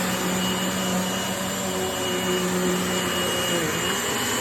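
Eureka AirSpeed upright vacuum cleaner running, its motor giving a steady high whine over a lower hum while it picks up shredded paper. The motor note dips briefly about two seconds in and again near the end.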